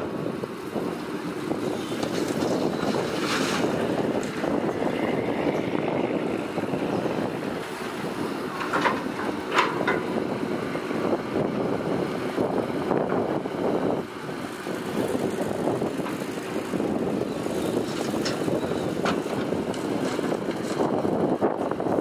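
Heavy construction vehicles running and moving along, a steady engine-and-machinery rumble. A few brief sharper sounds stand out about nine seconds in and again around eighteen seconds.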